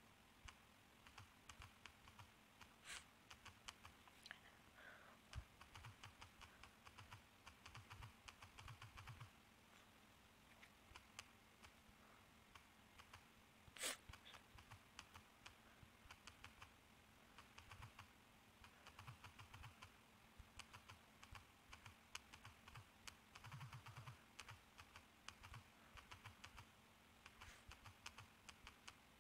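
Faint, irregular clicks of typing on a phone's touchscreen keyboard, with a slightly louder tap about fourteen seconds in.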